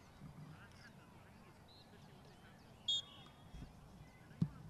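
A referee's whistle gives one short, sharp blast about three seconds in, over faint distant voices, followed near the end by a dull thump.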